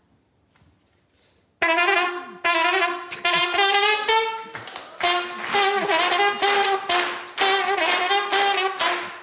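A homemade horn built from a brass teapot, blown like a trumpet, playing a tune of separate notes that starts about a second and a half in.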